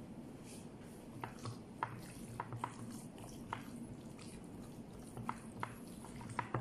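A bare hand squeezing and kneading a moist, seasoned mixture in a large bowl: irregular wet squelches starting about a second in, over a steady low background hum.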